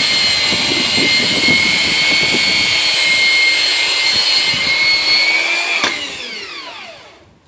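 Electric belt sander running with a steady high whine, with rough irregular scraping in the first seconds. About six seconds in it is switched off with a click and the whine falls in pitch as the belt spins down.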